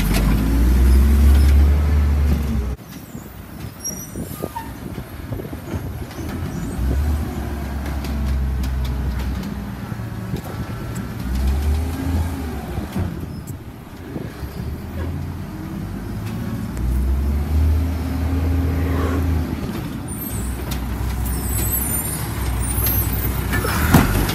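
Automated side-loader garbage truck's diesel engine revving up and falling back in repeated surges as the truck works its lifting arm, with a sharp click near the end.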